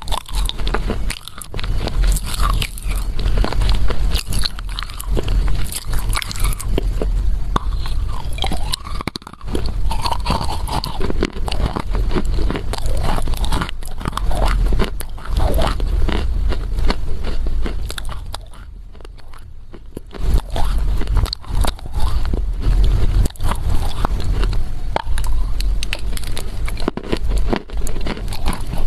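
Close-miked biting and chewing of a lump of Chinese loess clay: dense, dry crunches and crackles, with a brief quieter lull about two-thirds of the way through.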